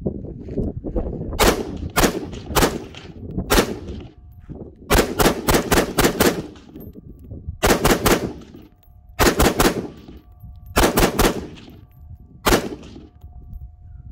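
Lead Star Arms Grunt AR-15 pistol with a 10.5-inch barrel firing semi-automatic, about twenty loud sharp shots. They come singly and in quick strings of three to six shots, roughly three to four a second, with short pauses between strings.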